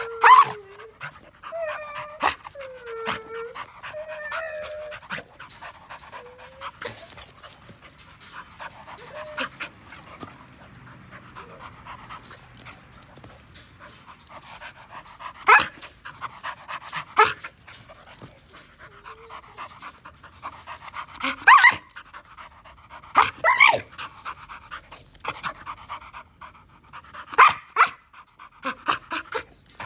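Young American Pit Bull Terrier panting hard and steadily, with a few short high whines in the first few seconds. Sharp clicks and knocks come now and then, the loudest a little past the middle and near the end.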